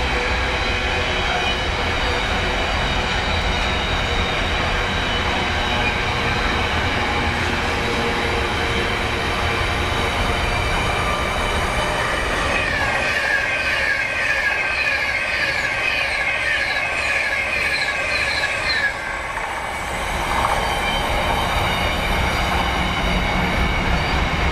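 A train passing at track side with a steady rumble and rail noise, joined for several seconds in the middle by a high-pitched squealing whine.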